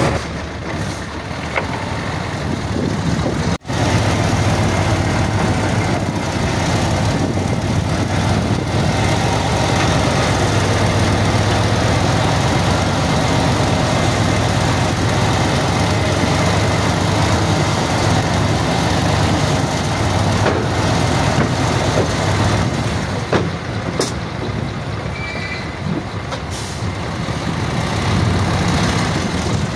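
Heavy diesel machinery running steadily under load, its engine sound strongest in the low range, with a brief break about three and a half seconds in.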